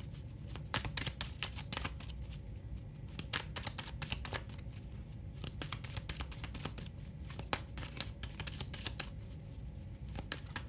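A deck of oracle cards being shuffled by hand: a dense, irregular run of quick card clicks and slaps.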